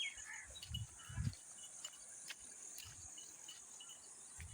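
Crickets and other insects calling: a steady high-pitched trill with short chirps repeated every few tenths of a second. A few soft, low thumps come through about a second in, around three seconds in and near the end.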